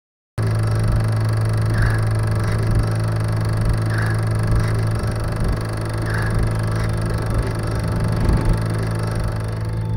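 A steady low hum over a noisy rumble, starting suddenly out of silence just after the start, with a faint short high sound repeating about every two seconds.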